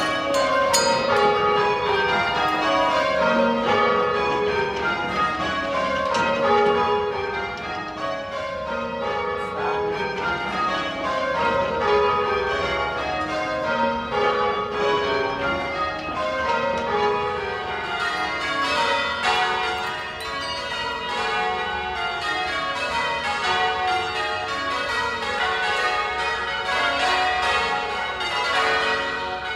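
Church tower bells rung with ropes in rounds: each bell strikes in turn from highest to lowest, and the descending run repeats over and over.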